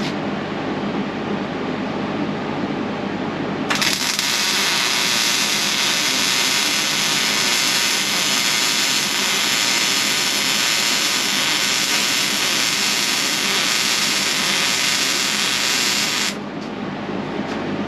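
Wire-feed welder arc crackling and hissing steadily while running a test weld bead on steel frame rail. It starts abruptly about four seconds in, runs about twelve seconds and cuts off sharply near the end, over a steady background hum.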